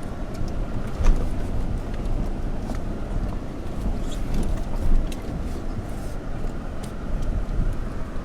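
Toyota Tacoma pickup creeping down a rough off-road trail: a steady low rumble of engine and tyres with scattered knocks and clunks, the loudest about a second in and another near five seconds.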